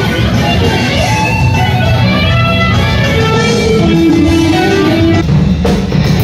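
Electric guitar playing a lead solo, held and bending notes over a full low end. Drum hits come in near the end.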